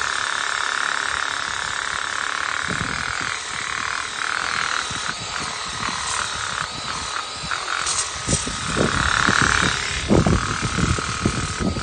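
Cordless electric pressure washer running and spraying on its widest fan setting: a steady motor-and-pump whine over the hiss of the water jet. From about eight seconds in, there are irregular low spattering thumps.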